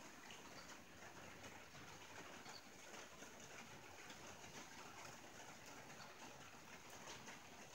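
Rain falling on a tin roof, heard faintly: a steady hiss dotted with many small, irregular drop ticks.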